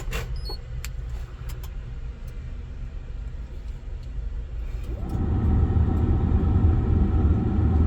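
Hitachi mini excavator's diesel engine started by remote starter: a low hum with a few clicks, then about five seconds in the engine fires and settles into a steady loud run.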